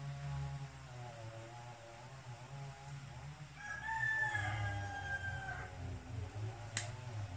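A rooster crowing once, a single long call of about two seconds that starts a few seconds in, over a steady low hum. A sharp click comes near the end.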